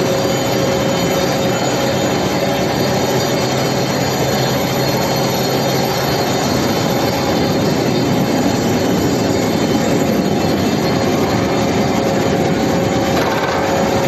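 Steel mill roller table running, carrying hot steel billets over motor-driven rollers: a loud, steady metallic rumble and screech with steady electric hum tones.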